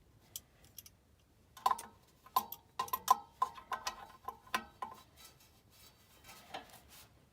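Sharp, uneven metallic clicks and taps, each with a short ring: a wrench tightening the set bolt that clamps a furnace blower wheel onto the new blower motor's shaft.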